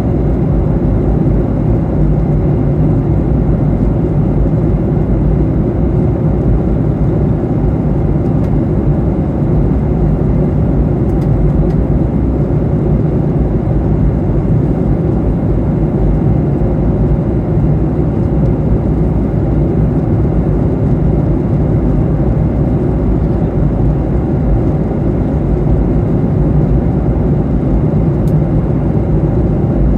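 Steady in-flight cabin noise of a Boeing 737-800: an even, low rumble of its CFM56 turbofan engines and the air rushing past the fuselage.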